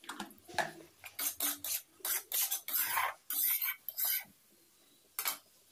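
Metal spatula scraping and stirring onions, capsicum and ground spices in a metal kadhai: a quick run of scrapes and clinks for about four seconds, then one more scrape near the end.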